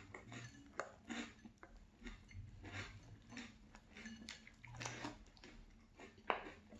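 Close-up chewing of a mouthful of Boo Berry cereal and marshmallows in milk: soft, irregular crunches and wet mouth sounds at a low level.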